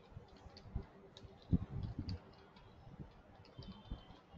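Keyboard keystrokes while code is typed: faint, irregular clicks with soft low thuds, bunched together in a run of typing near the middle.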